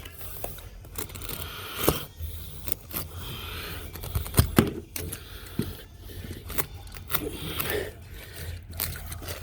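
Carpet installation work: irregular scraping and rustling of carpet being handled, broken by several sharp knocks.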